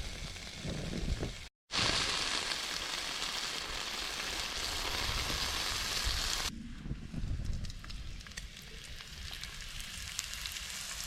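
Bacon sizzling in a pan. Wind rumbles on the microphone for the first second and a half. After a short break the sizzle is loud and even, then about six and a half seconds in it drops to a quieter sizzle with small crackles.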